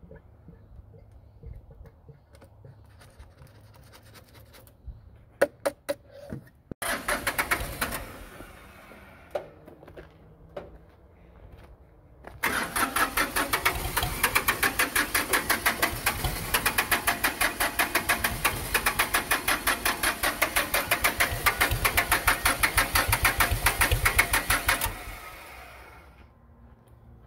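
The Ford 1520 tractor's three-cylinder diesel engine being cranked by its starter. There is a short crank, then a long, evenly pulsing crank of about twelve seconds that does not catch: no fuel is reaching the engine, because a blown fuse has left the fuel solenoid without power.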